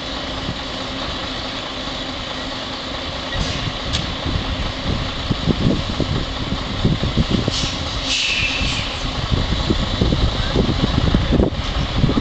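Diesel truck engine running at low speed as a truck and trailer creep forward. The sound grows louder and more uneven after a few seconds, with a few short hisses near the middle.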